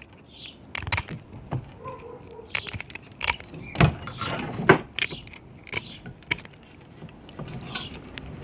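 Tin snips cutting a stainless-steel braided hose: irregular sharp metallic clicks and snips as the braid strands are cut, with the loudest snips about four and five seconds in, and small metal clinking from the line.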